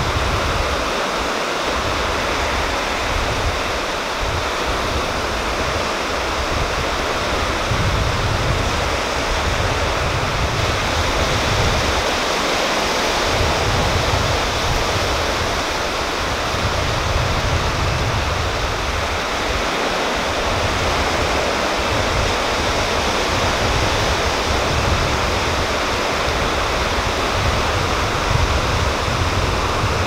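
Sea waves washing onto a rocky shore: a steady, even rush of surf.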